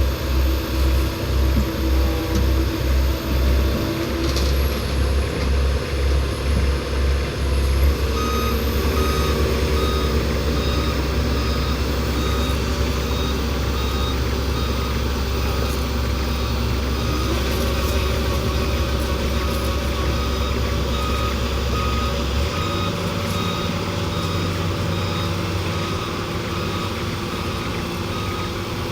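A heavy diesel vehicle's engine running with a deep rumble that throbs unevenly at first, then settles. About a third of the way in, its reversing alarm starts beeping at an even rhythm and keeps going as the vehicle backs up.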